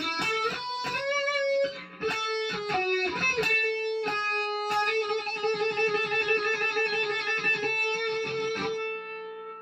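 Fender Stratocaster electric guitar playing a melody: a run of picked notes, then one long held note with slight vibrato from about five seconds in, fading near the end.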